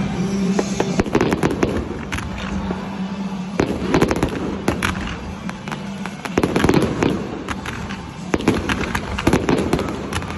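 Aerial firework shells launching and bursting overhead, a quick series of sharp bangs and crackles that comes in clusters every second or two.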